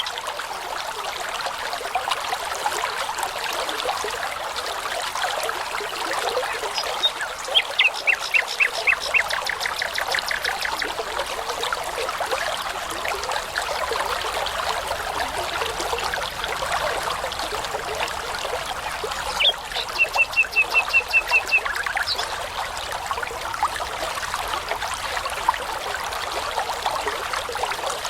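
A babbling brook running steadily, with a nightingale singing two short phrases of rapidly repeated notes, one about eight seconds in and another about twenty seconds in.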